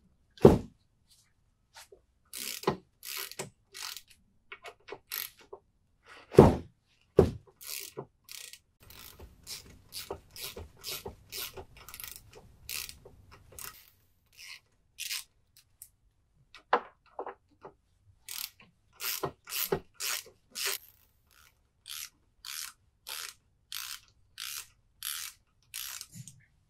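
Hand ratchet with a 7/32 socket loosening set screws on a mud motor's lower-unit sprocket: runs of sharp pawl clicks, about two a second, with each back-swing. A few louder knocks come about half a second in and again around six to seven seconds in.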